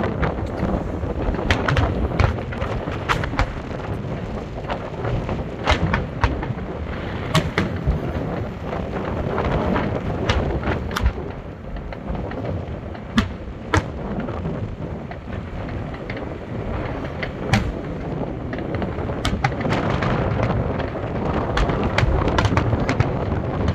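Fireworks bursting: many sharp bangs at irregular intervals, several a second at times, over a continuous low rumble of booms and echoes.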